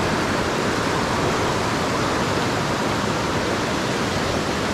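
River water rushing steadily, an even hiss of flowing current with no breaks.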